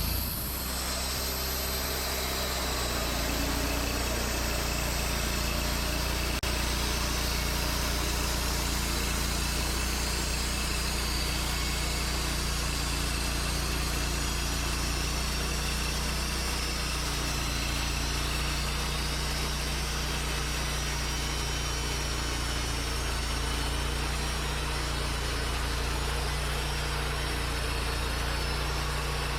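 Wood-Mizer LT40 band sawmill running steadily, its engine holding a constant speed.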